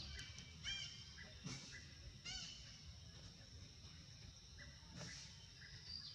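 A few short, harsh animal calls, three in the first half and one about five seconds in, over a steady high insect drone.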